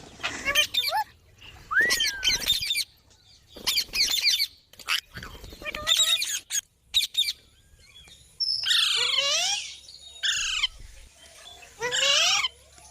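Green parrot calling over and over in short bouts of harsh, wavering chirps and squawks, with brief pauses between them.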